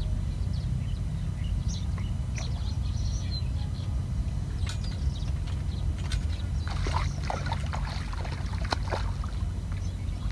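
Steady low wind rumble on the microphone, with short high bird chirps scattered through it, busiest about seven seconds in.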